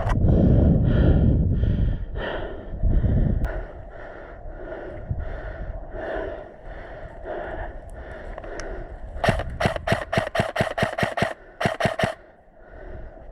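Heavy, even breathing about twice a second, with rumbling handling noise in the first few seconds. About nine seconds in, an airsoft electric rifle fires a quick string of about a dozen single shots, several a second, for roughly three seconds.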